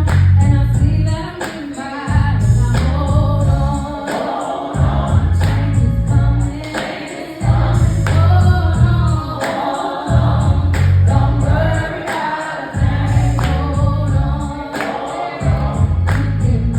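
Gospel song: choir-style voices singing over a backing track with a heavy bass beat.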